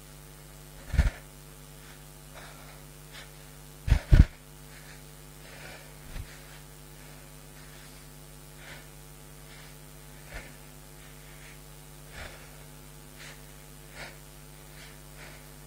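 A man breathing hard under exertion on an indoor spinning bike: short forceful exhales every second or two, with louder blasts of breath about a second in and a double one about four seconds in, over a steady low hum.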